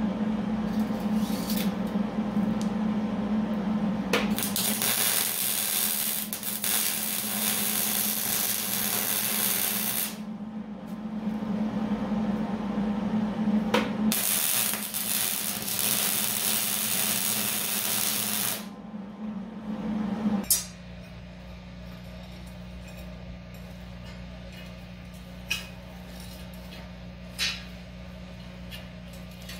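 MIG welding steel: two runs of crackling arc noise, about six and about four seconds long, over a steady machine hum. The hum stops with a click about two-thirds of the way through, and a couple of light clinks of steel bars being moved follow.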